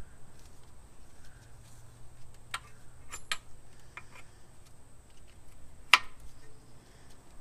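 A handful of light clicks and taps from metal fittings being handled as a turbo oil drain line's slip coupling and AN fitting are worked into place, with one sharper click about six seconds in.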